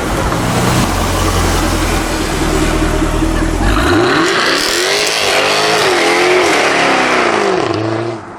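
Jaguar F-Type R's supercharged V8 running loud with a deep rumble, then revving up, its note climbing and falling back again over about four seconds.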